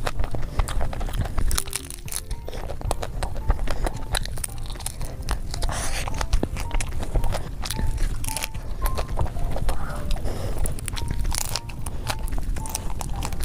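Close-miked biting and chewing of a crispy fried shell, with irregular crunches and wet mouth sounds.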